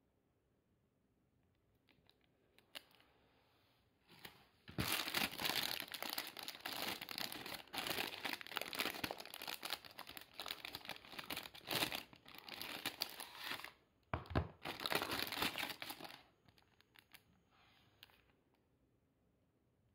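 Clear cellophane packaging bag crinkling and crackling as it is handled, with a short pause a little before the end; quiet at the start and the end.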